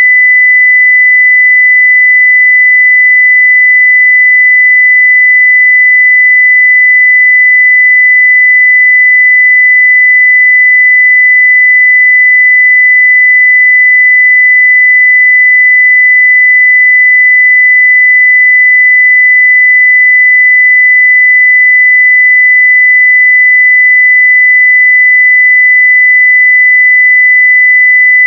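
A steady 2 kHz sine-wave test tone at full level (0 dBFS), a single pure tone held without change.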